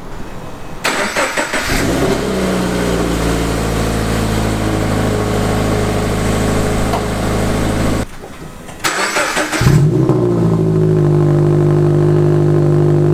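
A Subaru BRZ's flat-four engine is started twice, heard through its exhaust. Each time there is about a second of cranking before the engine catches with a short flare and settles into a steady idle. A brief gap about eight seconds in separates the two starts.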